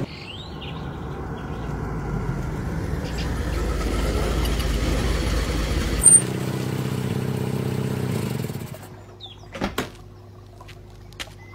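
A Mitsubishi Pajero SUV's engine runs as the vehicle drives up, growing louder over the first few seconds. After a sharp click about six seconds in, it idles steadily, then cuts off about nine seconds in.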